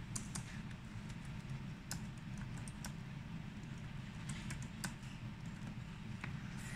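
Computer keyboard being typed on: irregular clicks of key strikes, over a steady low hum.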